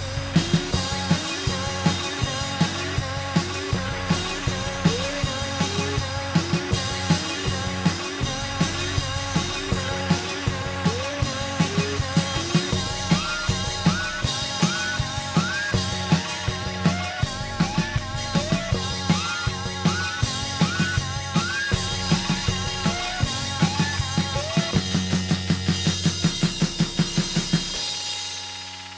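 Live rock band playing an instrumental passage: a drum kit with fast, dense hits, a steady bass line, and short melodic notes that slide up in pitch. The music dies down near the end.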